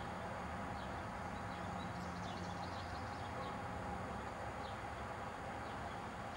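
Faint short bird chirps, scattered and high-pitched, over a steady background hiss with a low hum.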